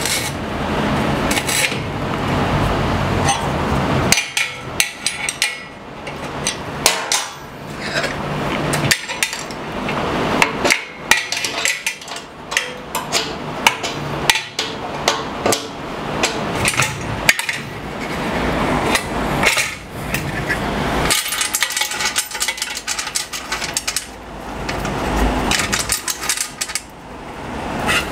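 Irregular metallic clinks and knocks of hand tools working on metal hardware, as the fence rail is fitted to the table saw.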